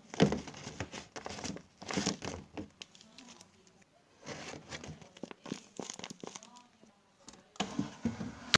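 Crinkling and tearing of wrapping in irregular bursts with short pauses, loudest right at the start.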